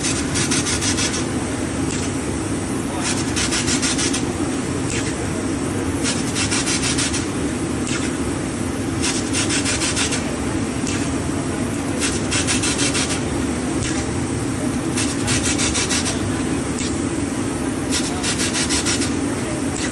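Abrasive rubbing strokes, like sanding or filing, repeating about every one to two seconds over a steady low hum.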